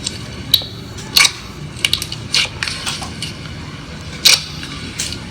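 Squishy slime being squeezed and pressed by hand, giving a string of short, sharp crackling squelches at irregular intervals, the loudest about four seconds in.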